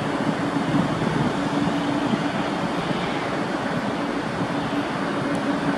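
Airbus A321 jet engines at take-off thrust as the airliner lifts off and climbs away: a steady, even roar with a faint steady hum beneath it.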